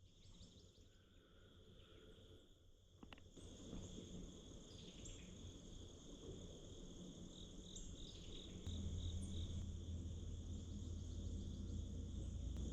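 Crickets trilling in a steady high-pitched chorus, under a low rumble that grows louder a few seconds in and again past the middle.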